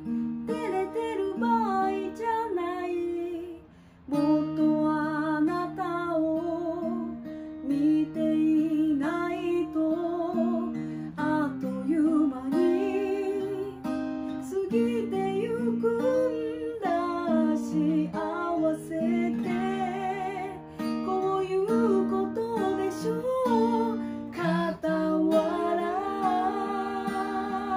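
A woman singing over strummed acoustic guitar, with a brief break in the music about four seconds in.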